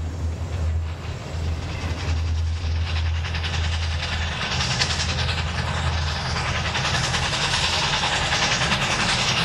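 Train sound effect played over a light show's loudspeakers: a train running on the rails with a heavy low rumble, and a rushing, clattering noise that grows louder from about halfway through.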